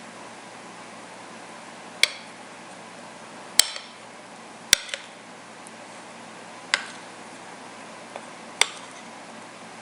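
Kitchen utensils and dishes clinking and knocking: about six short, sharp clinks at irregular intervals, a second or two apart, over a faint steady hiss.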